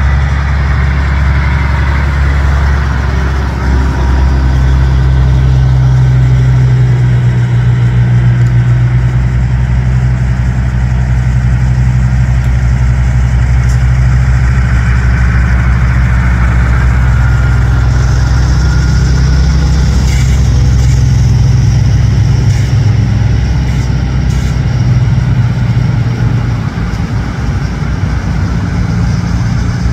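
Diesel engines of big-rig semi trucks running at low revs as they roll past slowly in a line, a loud, steady low rumble. A higher hiss with a few clicks comes in partway through.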